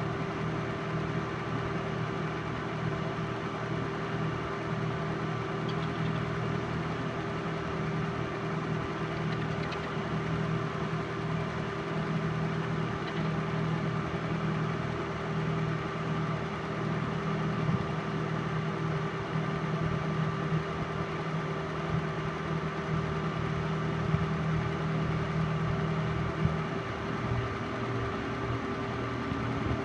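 Film projector running: a steady motor-and-fan hum with a few constant tones. Its low hum changes note about 26 seconds in.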